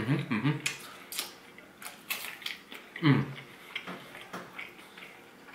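A person chewing crisp fried tortilla food with the mouth closed, giving scattered sharp crunching clicks. Short hums come from him near the start and again about three seconds in.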